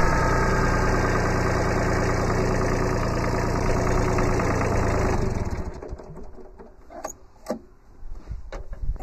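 Kubota B7100's three-cylinder diesel engine idling steadily, then shut off about five seconds in, running down to a stop within half a second. A few sharp clicks and knocks follow.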